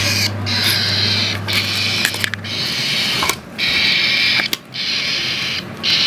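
Cockatiel chick, hand-fed and about 17 days old, giving raspy, hissing begging calls, about five long calls in a row with short breaks, the sound of a nestling asking to be fed.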